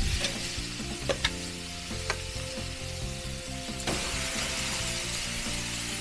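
T-bone steaks sizzling on hot gas-grill grates, a steady hiss, with a few sharp clicks of metal tongs against the grate as the steaks are laid down.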